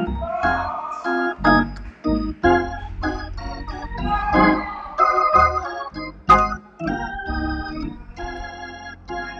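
Organ playing short, detached chords over a held low bass note.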